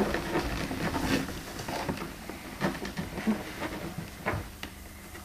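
Sixteen-day-old puppies shuffling over one another on their bedding: soft rustling with scattered small knocks and scrapes.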